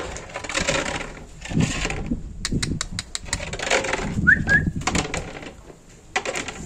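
Shuffling and rustling noise with a run of sharp clicks, and a short two-note rising chirp a little after halfway through.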